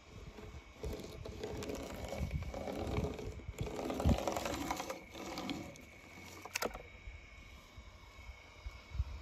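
Small hard objects rattling and scraping as they are handled, heaviest through the first half, with a low thump about four seconds in, a sharp click a little past the middle and a knock near the end.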